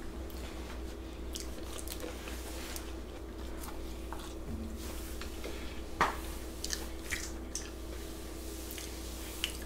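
Close-miked chewing of a mouthful of creamy shrimp and crab Alfredo pasta: scattered soft, wet mouth clicks and smacks over a faint steady hum.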